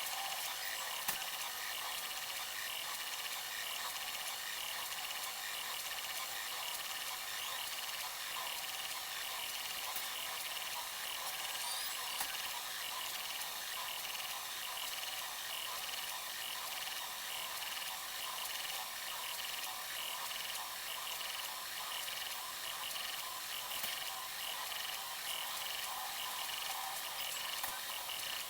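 Bambu Lab A1 3D printer running a print: a steady mechanical whir from its stepper motors and fans, with a few small clicks.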